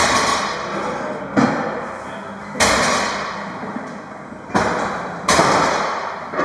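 About five loud bangs of gym weights at uneven intervals, each ringing out and echoing for a second or more in a large room.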